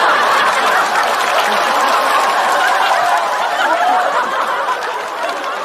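Large studio audience laughing at a comedy punchline: many voices at once, loud and sustained, easing off near the end.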